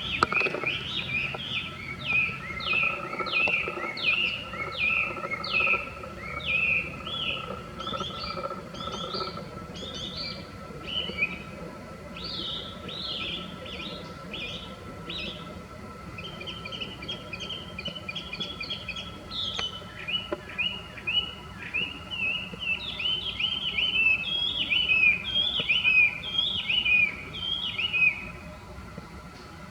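Chinese hwamei (gabichō) singing its loud, varied song: runs of clear whistled notes, each note repeated several times before the bird switches to a new phrase, with faster series in the second half.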